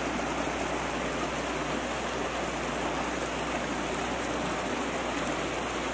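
Steady rush of a shallow creek running over rocks.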